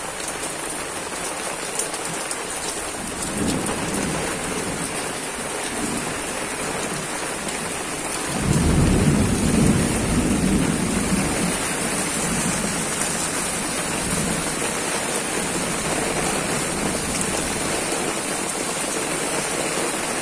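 Heavy rain falling on concrete, a steady hiss of drops and runoff. About eight seconds in a low rumble rises suddenly and fades over the next couple of seconds.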